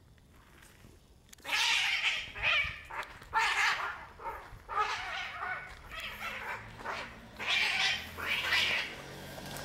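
Two cats fighting, an unneutered brown tabby tom attacking an orange cat: a string of loud, harsh screeching cries in repeated bursts, beginning about a second and a half in and running almost to the end.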